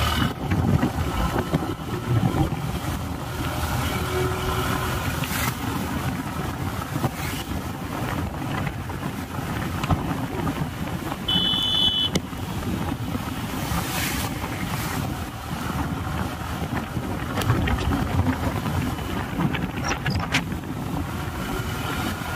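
Bus in motion heard from inside: steady engine and road rumble with scattered rattles and knocks. A short high beep sounds about halfway through.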